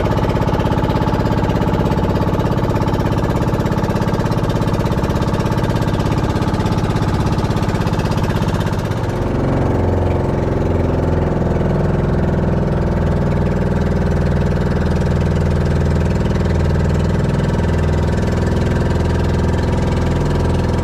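Outrigger boat's engine running steadily under way, close and loud. Its note changes about nine seconds in, then runs on evenly.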